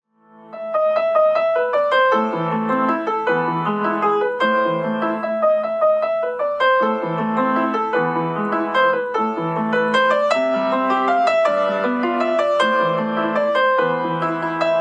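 Background piano music: a steady run of struck notes over a changing bass line, fading in quickly from silence at the start.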